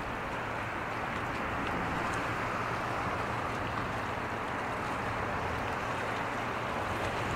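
Steady rushing wash of sea water and waves at the shore, with a faint low hum underneath.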